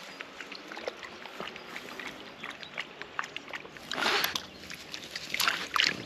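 French bulldog drinking from the lake's edge, lapping water in a run of small wet clicks and splashes, with two louder noisy bursts about four and five and a half seconds in.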